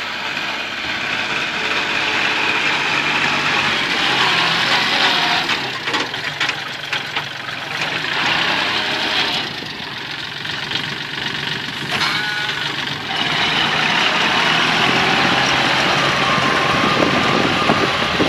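Kubota L3608 tractor's diesel engine running steadily while it works the soil, its level dipping slightly around the middle and rising again in the second half.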